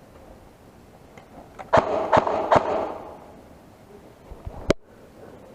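Airsoft gun firing: three sharp shots in quick succession, then a single shot a couple of seconds later.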